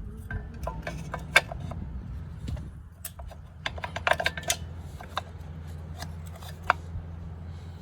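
Hand tools and metal parts of a dirt bike clinking and tapping during a teardown, as a stuck part near the shifter is worked at. The sharp clicks come irregularly, with a quick cluster about four seconds in, over a steady low hum.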